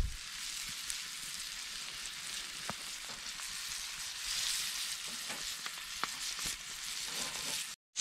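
Floured northern pike nuggets sizzling in oil in a cast iron pan over an open wood fire, a steady frying hiss with a few sharp pops. The sizzle grows louder about four seconds in.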